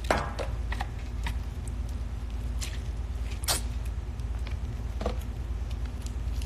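A few scattered small clicks and taps of food and plate being handled close to a phone's microphone, the sharpest about three and a half seconds in, over a steady low hum.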